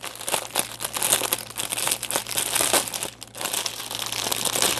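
Plastic packaging around diamond-painting drill bags crinkling and rustling as it is handled, in a dense run of crackles that pauses briefly a little after three seconds in.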